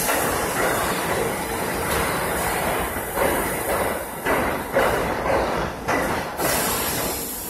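R68A subway train rolling into an underground station and slowing, its steel wheels rumbling along the rails with a series of clacks as the cars pass over rail joints. A brief high hiss comes near the end.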